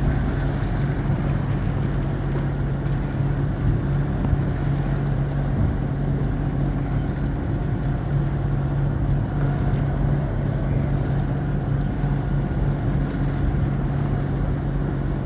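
A sailboat's engine running steadily at low speed, a constant drone, against the wash of breaking surf behind the boat.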